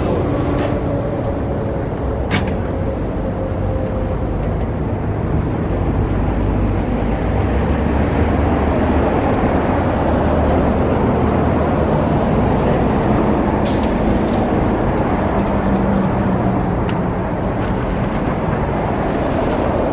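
Steady road traffic passing on a busy boulevard, with a few short clicks standing out over it.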